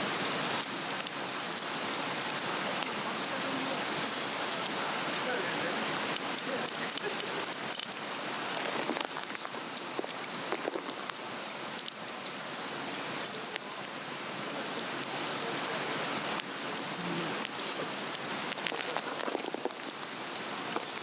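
Swedish torch, a cedar log slotted crosswise, burning with steady crackling and frequent small pops.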